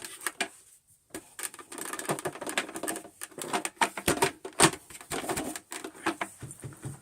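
Handling noise: a rapid, irregular run of clicks, taps and rustles, with a short lull about a second in.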